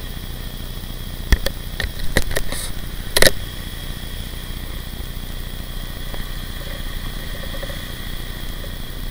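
Steady rumble of wind and road noise on the microphone while riding along a paved road, under a faint steady high whine. A quick run of knocks and rattles comes between about one and three and a half seconds in, the loudest near the end of the run.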